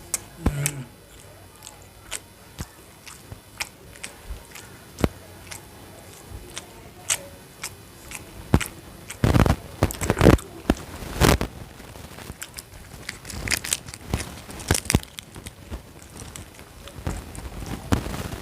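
A person eating: chewing and biting food, with sharp crunches and wet clicks scattered throughout and a run of louder crunches in the middle.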